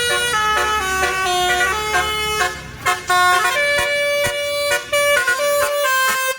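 Bus telolet basuri horn playing a melody: a quick run of clear, stepped horn notes with short breaks between phrases. A bus engine runs low underneath for the first couple of seconds.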